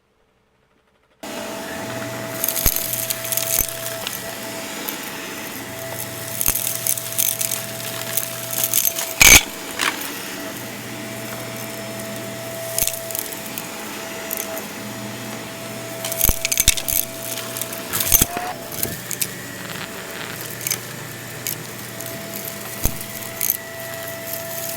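Plastic clicks, crackles and rustling as a Shark vacuum's dust bin is handled and emptied of fluffy debris, over a steady low hum. The sound starts about a second in, and there is one loud click about nine seconds in.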